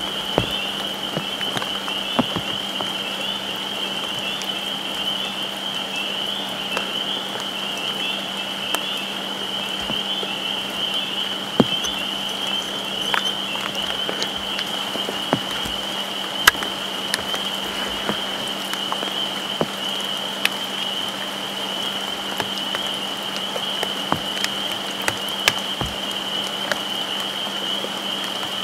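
A steady high-pitched chorus of frogs calling together, with rain falling and scattered sharp drops ticking close to the microphone. A faint low hum runs underneath.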